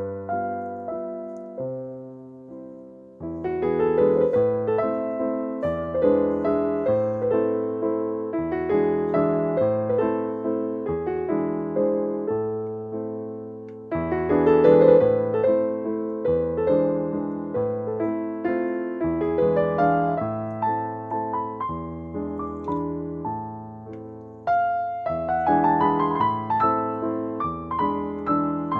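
Background piano music: a slow, gentle melody of struck notes that ring and fade, in phrases that swell again about 3, 14 and 25 seconds in.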